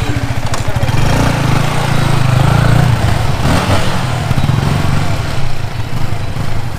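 Motorcycle engine running steadily near idle just after a hard start, on a bike that had stood unused for a long time.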